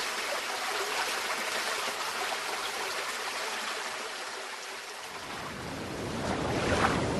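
Sea sound effect: rushing water like waves, a steady hiss that grows fuller and deeper about five seconds in.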